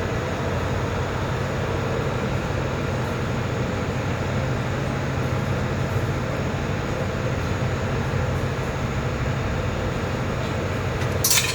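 Stick (arc) welding with an E6013 electrode: a steady crackle from the arc over a constant hum from the welding machine. A brief, sharp, loud burst comes right at the end.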